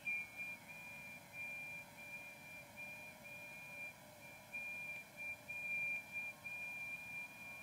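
Receiver audio from an ICOM IC-705 tuned to the 40 m FT8 frequency: steady whistle-like FT8 data tones over band hiss. The strongest, high-pitched one is broken by short gaps, and fainter lower tones run under it.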